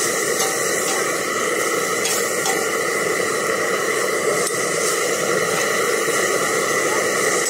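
Broccoli, onion and mushrooms sizzling on a hot cast-iron fire pan: a steady, even hiss.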